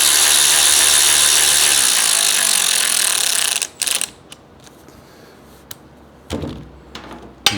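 Cordless power tool with an 8 mm Allen bit running a motorcycle shock bolt in, a steady motor run of about three and a half seconds that stops abruptly. A few faint knocks follow near the end.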